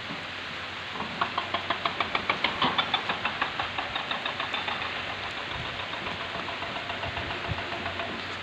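Steady rain hiss with a small engine chugging in a regular knock, about five beats a second. It starts about a second in and slowly fades.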